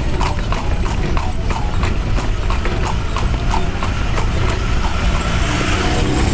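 Hooves of a carriage horse clip-clopping in a steady, even rhythm of about three beats a second, heard from aboard the horse-drawn carriage, over a steady low rumble of the carriage running along the street.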